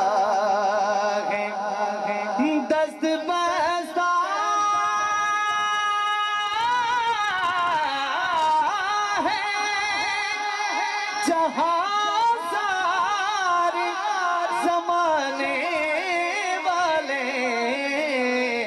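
A man sings an Urdu devotional kalam through a microphone in a wavering, ornamented line, holding one long note about five seconds in.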